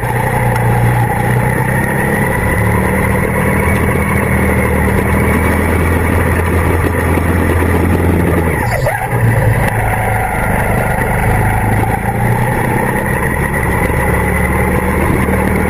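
Go-kart engine running under load, heard from on board the kart, holding a steady note with small changes in pitch and a brief drop a little under nine seconds in as the throttle comes off.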